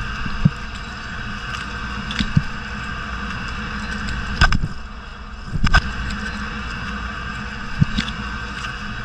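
Underwater ambience around a freediver: a steady watery hiss and low rumble, broken by a few sharp clicks and knocks, the loudest two about four and a half and nearly six seconds in.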